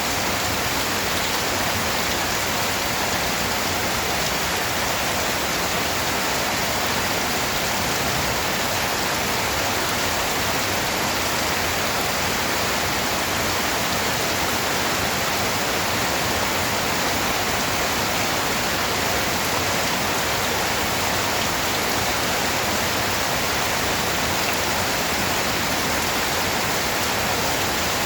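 Steady, even rain noise with no distinct drops or changes.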